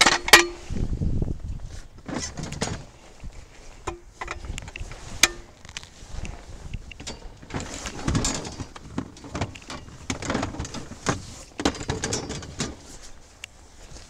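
Irregular clanks, clicks and knocks of roadside tools being handled: a floor jack on pavement and gear shifted about in a car trunk, with rustling between. A sharp click about a third of a second in and another about five seconds in are the loudest sounds.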